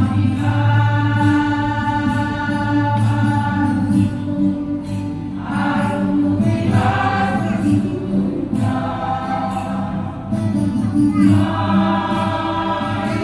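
Church choir singing a hymn in long held phrases, with short breaths between them.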